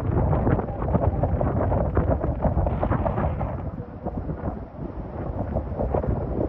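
Hurricane-force wind buffeting the microphone: a dense, gusting low rumble that eases somewhat about four seconds in.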